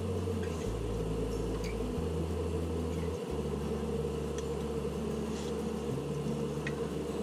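A steady machine hum with a low rumble that shifts in level every second or so, and a few faint clicks.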